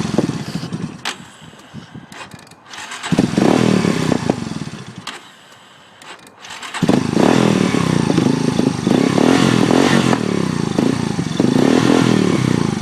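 Small ATV engine revved unevenly in surges. It falls to a low level about five seconds in, then comes back suddenly and runs revved up steadily. This is a beginner working the throttle while learning the clutch.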